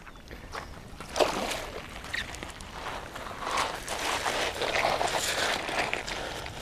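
Shallow river water splashing and sloshing around a hand as a caught Eastern cod is let go and swims off, with a sharper splash about a second in.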